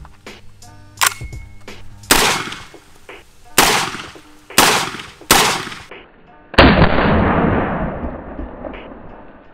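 Five shots from a Genesis Arms Gen 12 semi-automatic 12-gauge shotgun firing 00 buckshot, coming about a second apart from about two seconds in. The last shot is the loudest and dies away over about three seconds.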